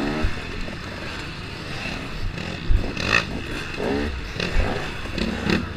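KTM 250 XC-W two-stroke dirt bike engine revving up and down several times while riding a rough dirt track, with a few dull thumps from the bike hitting bumps.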